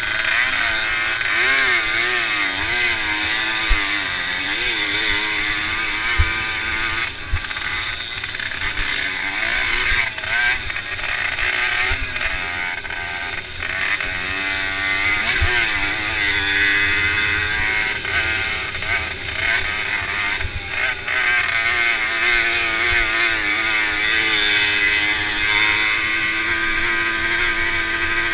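Small racing motorcycle engine heard from the rider's helmet, revving up and down continuously as it is ridden hard over a bumpy grass-and-dirt track. A low rumble runs underneath, and a few sharp knocks come from bumps.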